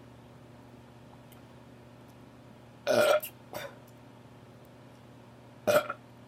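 A person burping loudly twice: a longer burp about three seconds in with a short after-burp, and a second one near the end. The burps are forced up with gas from the cola being drunk for the challenge.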